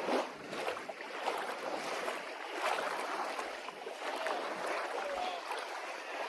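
Water washing and splashing in the shallows: a steady wash of small waves with short, sharper splashes scattered through it.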